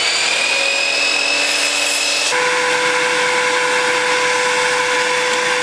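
Electric miter saw running and cutting cedar planks: a loud, steady whine that rises slightly over the first two seconds, then changes abruptly to a different steady pitch.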